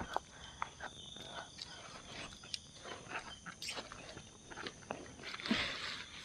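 Faint clicks, knocks and rustling from tent poles and pegs being handled and feet moving in leaf litter while a tent is pitched, with a louder rustle about five and a half seconds in. Behind it runs a faint steady high drone of night insects.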